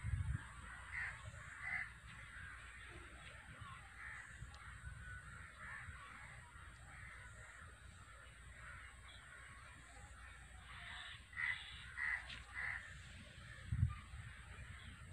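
Crows cawing in scattered calls, with a run of three louder caws near the end. Low bumps of camera handling at the start and near the end.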